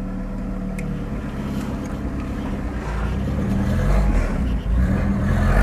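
Chevrolet Opala engine running through its exhaust, steady at first, then getting louder over the last couple of seconds as it is revved or pulls away.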